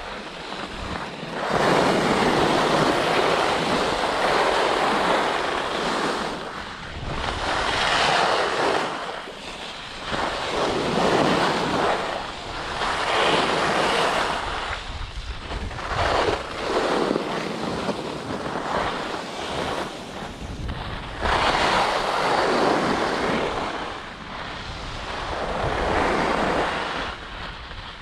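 Skis carving and scraping on packed piste snow through a run of turns. Each turn is a swell of hissing noise, about one every two to three seconds, over wind rumbling on the microphone.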